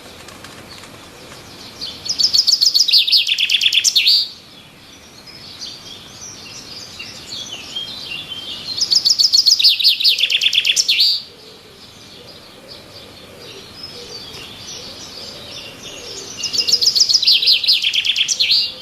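Birds singing in trees: one bird repeats a loud song of rapid, evenly spaced high notes about two seconds long, three times, roughly every seven seconds. Softer chirping from other birds fills the gaps between songs.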